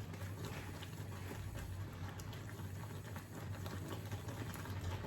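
A faint steady low hum with a few faint scattered ticks: kitchen background sound.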